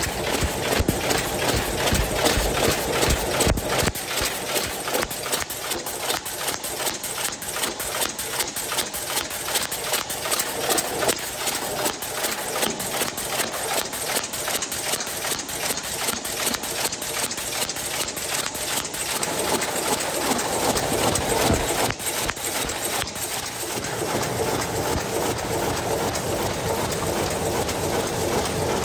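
DEBAO-138S high-speed paper cup forming machine running in production, its mechanism making a fast, steady clatter of clicks and knocks.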